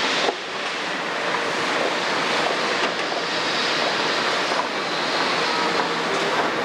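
Kobelco 350 excavator's six-cylinder Hino J08 diesel running steadily under load as the machine lifts a full bucket and swings, heard as an even rush with a couple of faint knocks.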